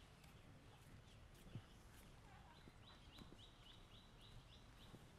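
Near silence: faint outdoor ambience with a quick run of about eight short, high chirps a little past halfway, and a few soft taps.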